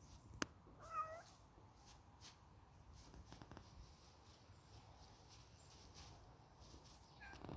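Bengal cat giving a short, quiet meow about a second in, and another brief call near the end, with a single sharp click just before the first.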